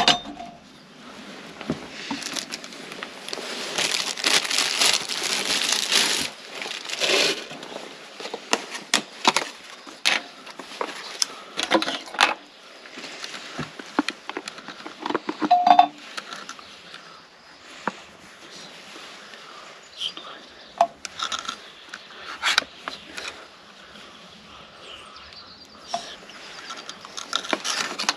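Plastic crinkling and tearing, with scattered clinks and knocks of a knife and cooking gear, from handling food packaging and utensils while preparing steaks for the pan.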